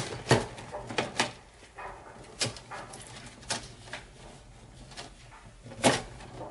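Gloved hands bending and handling a stiff insulated copper wire in a breaker panel: scattered clicks and light knocks, the sharpest near the start and about six seconds in.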